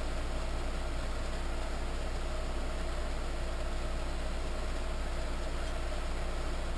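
Small benchtop machine tool's electric motor running steadily, a constant hum with a steady whine.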